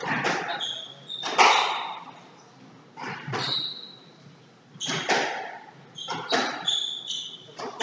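Squash ball struck by rackets and smacking off the court walls, about seven hits spread a second or so apart, echoing in the court. Short high squeaks of shoes on the wooden floor come between the hits.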